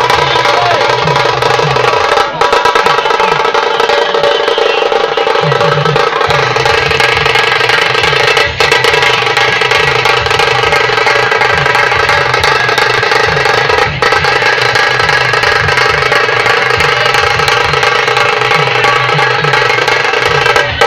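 Dhol-tasha drumming: tasha drums played in a fast continuous roll, the rattling "kirrrr" sound, over a repeating beat from the deeper dhol drums. Loud and unbroken apart from momentary breaks about 2, 8 and 14 seconds in.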